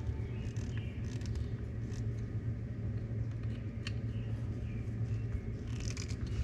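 A 1962 AMC Rambler's 196 cubic-inch straight-six engine running steadily at idle on its freshly rebuilt Holley 2051B one-barrel carburetor, a low even rumble.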